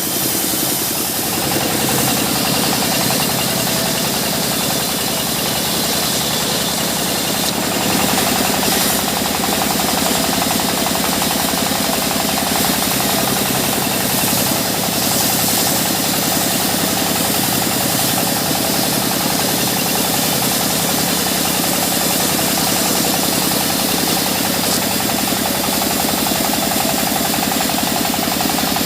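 A sawmill's engine running steadily at a fast, even beat. Its tone shifts about one and a half seconds in and again at about seven and a half seconds.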